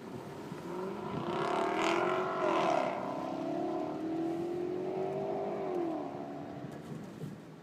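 Jaguar car engine accelerating, heard from inside the cabin. Its pitch climbs, dips briefly at a gear change about three seconds in, climbs again, then drops as the driver eases off near the end.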